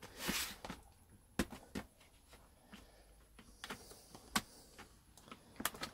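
A handful of sharp plastic clicks and taps, scattered irregularly, as a laptop's plastic keyboard deck is handled and pried at its edge to release its clips.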